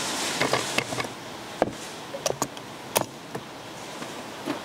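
Irregular sharp metal clicks and knocks from handling motorcycle engine parts: an aluminium crankcase being set on a mounting stand and loose metal parts being handled. A steady workshop background noise runs underneath.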